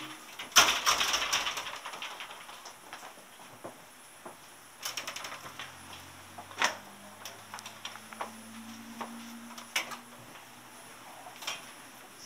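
Handling noise from a handheld camera being swung about: a rattling clatter about half a second in, lasting about a second, then scattered sharp clicks and knocks. A faint low hum comes in midway and fades before the end.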